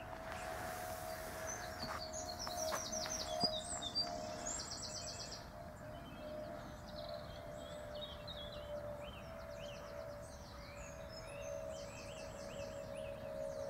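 Wild songbirds singing: rapid repeated trills and short high chirps, coming and going, over a steady humming tone that never stops. A few sharp clicks come about three to four seconds in.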